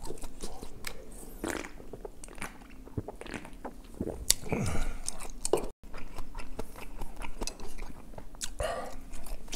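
Close-miked chewing and crunching of a raw green hot chili pepper, in many short crisp crunches, with a few swallows from a drink can about four seconds in.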